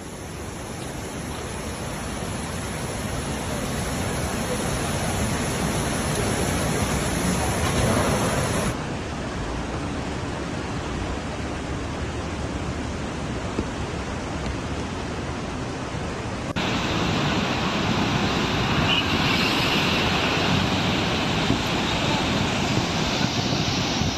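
Rushing floodwater: a steady, loud rushing noise that changes abruptly about nine seconds in and again about seventeen seconds in, as separate clips are cut together.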